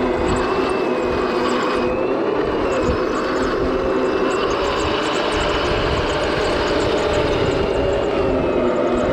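Toy RC tank's small electric drive motors and gearbox whining steadily as it drives along, the pitch wavering slightly, over a rough grinding rattle.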